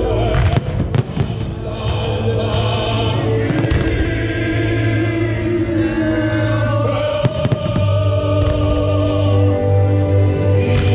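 Aerial firework shells bursting with sharp bangs at irregular moments, over choral music with long held notes.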